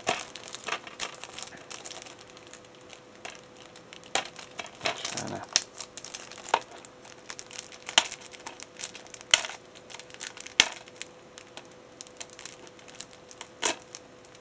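Plastic wrapping and seal on a DVD case being picked at and torn off by hand, giving irregular crinkling with sharp crackles and clicks.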